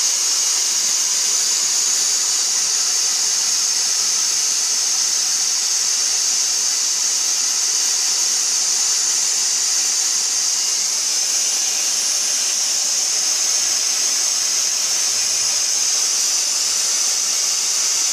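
Dyson DC44 Animal cordless stick vacuum running steadily, a high-pitched whine with a rushing hiss of air that holds the same level throughout.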